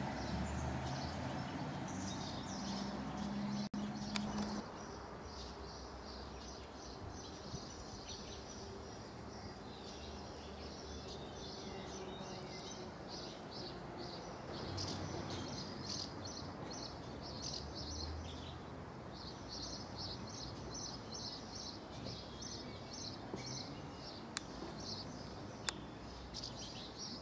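Small birds chirping in quick repeated phrases over steady outdoor background noise. A low steady hum in the first few seconds stops abruptly about four and a half seconds in.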